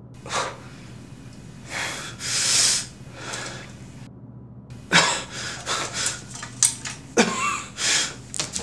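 A saxophone player's breathy puffs and hisses of air with no clear notes: a longer, loud hiss about two seconds in, then a quick run of short, sharp puffs from about five seconds.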